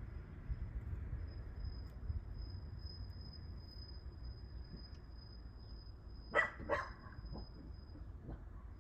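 A dog barks twice in quick succession about six and a half seconds in, over a steady low rumble and a faint steady high-pitched tone.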